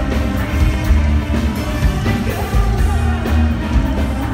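Live band music with a heavy, steady beat, violin and a woman singing.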